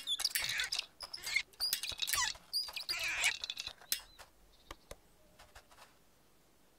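Children's-television sound effects: quick, high squeaky chirps and gliding squeals mixed with sharp clicks, thinning out after about four seconds to faint scattered ticks.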